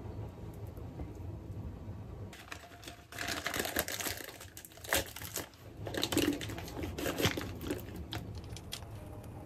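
Thin plastic piping bag crinkling and rustling as it is opened out in a glass measuring jug and filled with meringue from a spatula, with a few sharp knocks of the spatula among it. It starts about two seconds in and dies away near the end.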